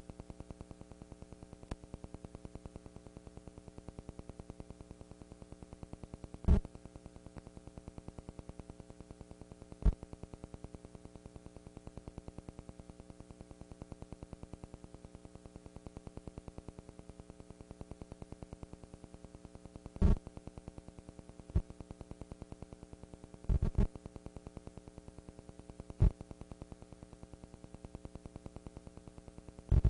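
Steady electrical hum with a buzzing, fluttering texture from the audio track, broken by sharp clicks at irregular intervals, including a close pair near the three-quarter mark. Nothing in the hum changes in pitch the way band music would.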